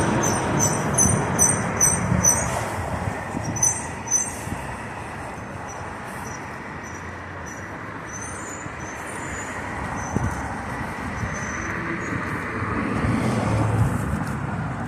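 Street traffic, a steady wash of passing vehicle noise that swells as a vehicle goes by near the end. A quick run of light high clicks sounds in the first few seconds.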